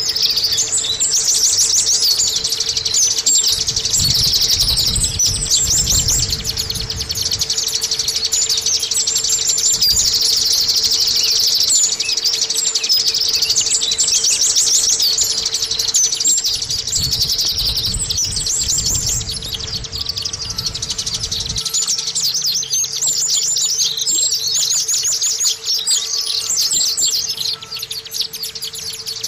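White-eye (pleci) song: a fast, unbroken high twittering of rapid chirps, the kind of song used to coax a caged pleci into singing.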